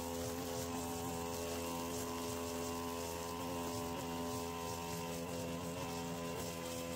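Petrol string trimmer engine running steadily at working speed, giving an even, droning hum.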